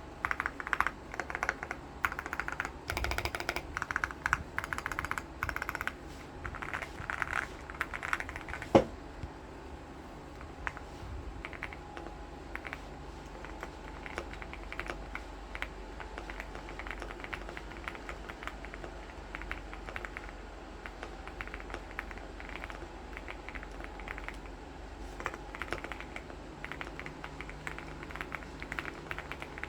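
Mechanical keyboard typing: fast, loud keystrokes for the first nine seconds or so, ending in one sharp, louder knock, then lighter, sparser key clicks.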